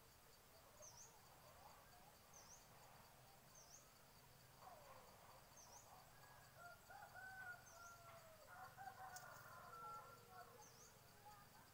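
A rooster crowing faintly, drawn-out rising and falling calls through the middle and latter part. Behind it runs a steady high insect trill, with short high chirps every second or two.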